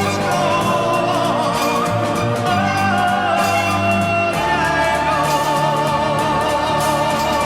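Soundtrack music: an orchestral piece with a held, wavering melody line, sung or bowed, over steady low notes.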